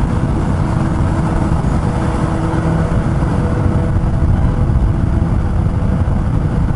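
Suzuki GSX-S750's inline-four engine running at a steady cruising speed inside a road tunnel, under a heavy steady rush of wind and road noise.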